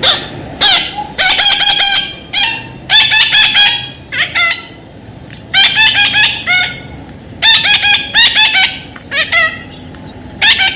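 Baby parrot calling: loud, repeated short squawking notes in quick runs of several at a time, with brief pauses between the runs.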